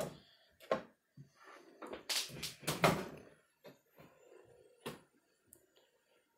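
A steel Husky tool-chest drawer pulled open, with scattered knocks and clunks of handling, loudest in a cluster about two to three seconds in, and a sharp click near five seconds.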